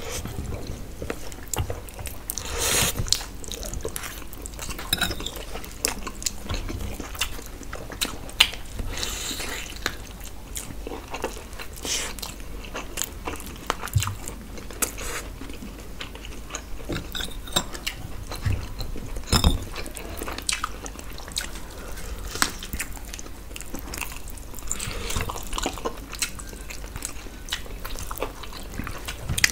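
Close-miked eating: chewing and mouth noises, with a few brief slurps of spicy instant noodles and soft clicks of fingers working rice on a steel plate.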